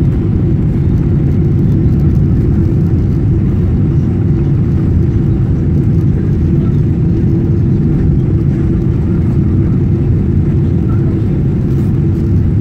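Steady low rumble inside an airliner's cabin on final approach: engine and airflow noise, with a faint steady hum running through it.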